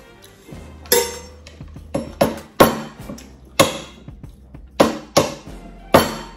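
A knife chopping through a cooked lobster's shell onto a plate: about eight sharp knocks at uneven intervals, over background music.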